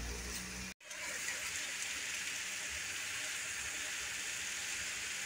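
Jackfruit and fried anchovies sizzling steadily in a wok on the stove, an even soft hiss. The sound breaks off briefly just under a second in, then resumes unchanged.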